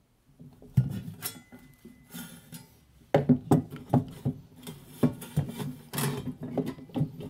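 Tin snips cutting a thin stainless steel sheet: a run of sharp metallic snips and clinks as the blades bite and the sheet flexes, a few at first, then close together from about three seconds in. The stiff stainless makes the cutting hard going.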